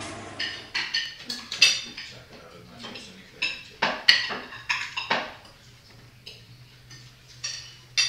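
Plates and cutlery clinking at a dining table: irregular sharp clinks that come thick and fast for the first five seconds, then sparser, with one more loud clink near the end.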